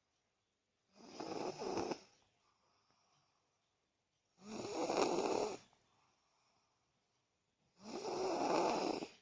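A three-year-old boy snoring very loudly, like an adult. There are three snores, each about a second long and roughly three and a half seconds apart.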